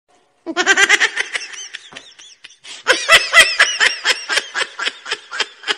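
Laughter: high-pitched giggling in quick, even bursts of several a second. It comes in two runs, the first starting about half a second in and the second about three seconds in.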